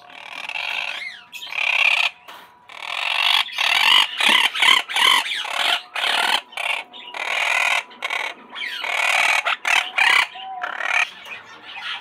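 Monk parakeets calling: a rapid run of short, loud calls with brief gaps between them.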